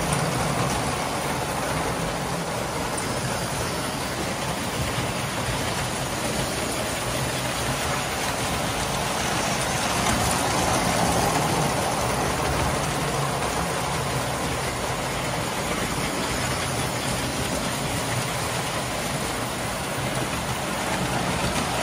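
Several vintage O-gauge tinplate toy trains running at once: a steady rumble of metal wheels on metal track with an even electric motor hum underneath.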